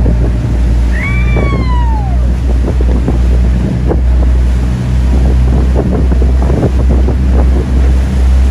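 Boat engine running steadily with a low hum, under heavy wind buffeting the microphone and the splash of water. About a second in, one high call falls in pitch over about a second.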